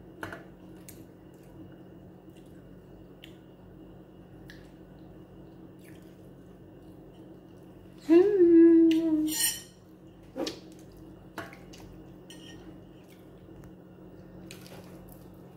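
Small scattered clicks and taps of eating at a table, fingers picking at fried fish on a metal tray, over a steady low hum. About eight seconds in a woman's voice speaks loudly for a second or so, followed by a couple of sharper taps.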